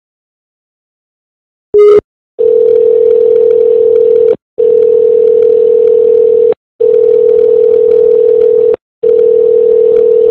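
Telephone dial tone on the line, a steady hum-like tone in stretches of about two seconds with short breaks between them. It is preceded about two seconds in by a brief, very loud beep-like click.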